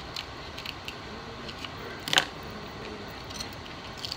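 Crab leg shell being snipped and cracked with small kitchen scissors: scattered light clicks, with one loud crack of shell about two seconds in.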